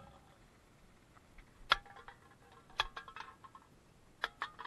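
A long rod tapping on a concrete sidewalk three times, about a second to a second and a half apart, each tap sharp with a brief ringing note.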